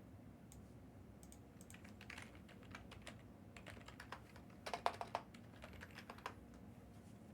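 Typing on a computer keyboard: a loose run of soft key clicks, with a quick, louder cluster of strokes about five seconds in.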